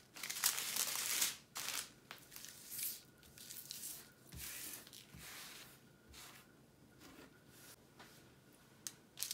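Plastic bags and packets rustling and crinkling in short bursts as spilled resin diamond-painting drills are gathered up by hand from the canvas; loudest in the first second and a half.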